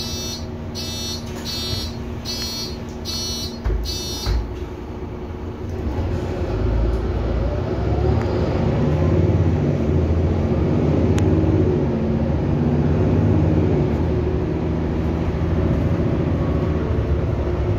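Door-warning beeps of a Mercedes-Benz Citaro C2 city bus, heard from inside the passenger cabin: six evenly spaced beeps over about four seconds, then two low thumps as the doors shut. The engine then runs louder and rises in pitch as the bus pulls away.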